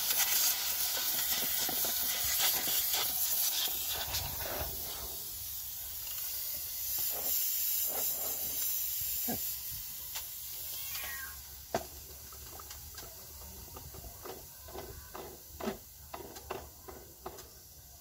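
Handheld steam cleaner jetting steam onto an engine, a loud steady hiss that fades away about ten seconds in. After that come scattered faint clicks and ticks.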